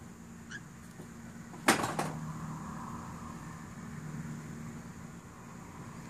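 A quick clatter of a few sharp knocks about two seconds in, over a steady low hum.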